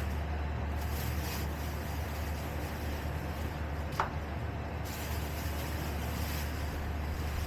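A steady low hum with a faint hiss over it, and a single sharp click about four seconds in.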